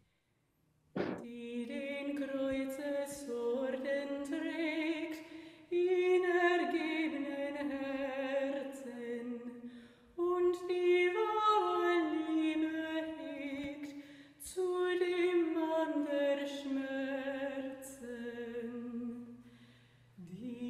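Voices singing a German-language Moravian hymn unaccompanied, in four long phrases with short breaks between them. The resonance is that of a stone building's wooden-floored upper hall, unprocessed, with the singers singing into the floorboards.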